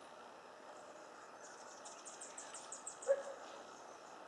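Faint bird calls: a quick run of high ticks, about seven a second, starting about a second and a half in and lasting about a second and a half, then a single short lower call about three seconds in, the loudest sound.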